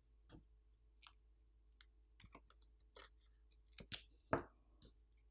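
Faint, scattered clicks and taps of a disassembled smartphone's frame and small parts being handled by fingers, about ten in irregular succession, the loudest a little over four seconds in.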